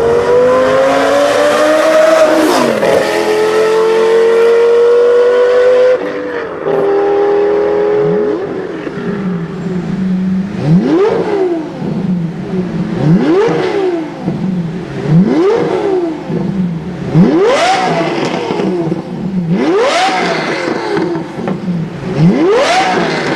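Lamborghini engine running through a Kreissieg valved aftermarket exhaust: held at high revs for the first several seconds, then dropping to idle and revved sharply over and over, about once every two seconds, each rev climbing quickly and falling straight back.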